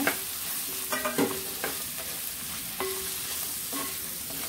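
Drumstick pieces, shallots, garlic and tomato sizzling in hot oil in a clay pot while a wooden spatula stirs them, scraping against the pot several times.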